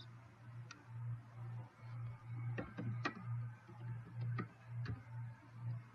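A low hum that pulses about twice a second, with a few sharp, separate clicks from a computer mouse as the presentation slide is advanced.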